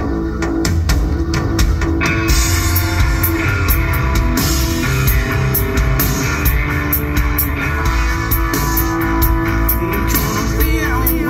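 Live rock band played through a festival PA: a driving drum-kit beat with distorted electric guitar, the sound filling out with cymbals about two seconds in. A singer's voice comes in near the end.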